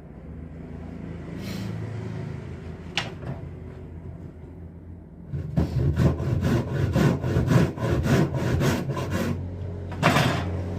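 Hand saw cutting wood in quick, even strokes, about four a second, for several seconds in the second half; a single sharp knock about three seconds in.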